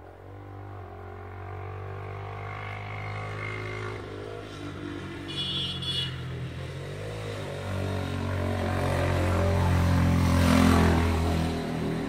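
A motor vehicle's engine running and drawing nearer, growing steadily louder to a peak about a second before the end, then dropping off.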